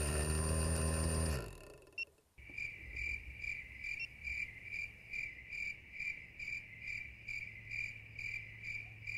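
Electronic beeper on a crashed quadcopter giving short, identical high-pitched beeps about three times a second, a steady alarm pattern. In the first second and a half a steady low hum sinks in pitch and cuts off.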